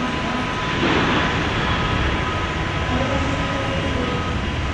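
Airbus A321neo's Pratt & Whitney PW1100G geared turbofan engines idling on the apron: a steady, even noise with two thin, steady whining tones, swelling briefly about a second in.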